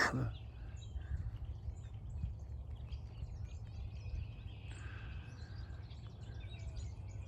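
Faint songbirds chirping and whistling over a steady low rumble, with a short run of clearer whistled notes about four to five seconds in.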